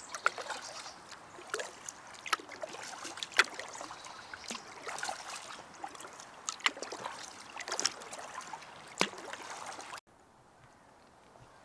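Paddle strokes of a packraft on a lake: irregular splashes and drips of water from the paddle blades. The sound cuts off abruptly about ten seconds in, leaving a much quieter background.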